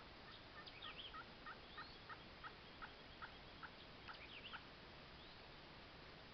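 A series of about a dozen faint turkey yelps, roughly three a second and slowing slightly, over about four seconds. Small birds chirp faintly.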